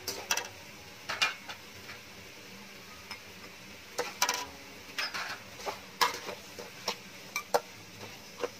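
Metal wok ladle scraping and knocking against a metal wok while stirring chunks of pork leg: about a dozen irregular scrapes and clinks, a few with a short metallic ring.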